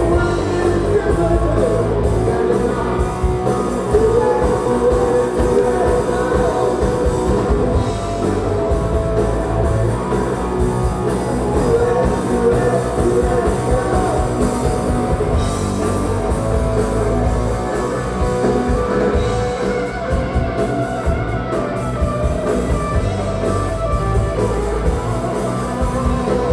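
Loud live rock music from a band on stage: electric guitars over a steady drum beat, heard from among the audience.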